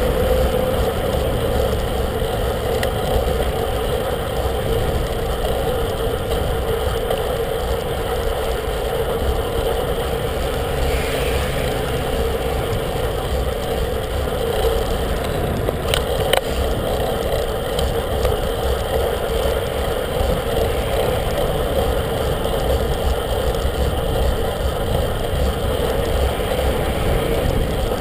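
Steady riding noise of a bicycle moving fast: wind on the microphone and tyre and road rumble, with a couple of sharp clicks a little past halfway.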